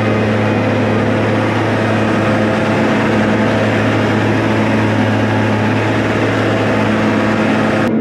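New Holland tractor running steadily under load, driving a straw bale chopper that blows chopped straw out through its spout: a constant loud engine drone with a steady hum, mixed with the rush of straw through the blower.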